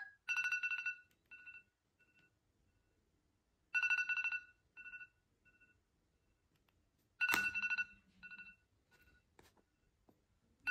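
iPad alarm ringing: a burst of rapid high beeps that fades away in a few softer echoes, repeating about every three and a half seconds.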